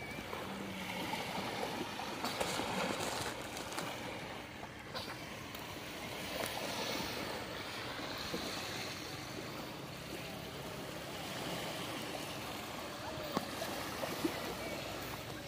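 Small waves lapping and washing onto a sandy beach, a steady soft wash that swells now and then.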